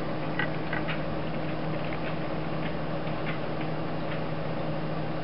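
Faint ticks and taps from a handheld video camera being handled and repositioned, over a steady low hum.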